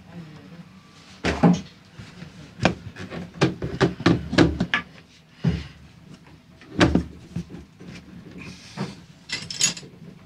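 Hands and tools working on the hoses and exhaust mixing elbow of a Yanmar 4JH45 marine diesel with the engine stopped: a string of sharp knocks and clicks of hard parts, with some rubbing near the end.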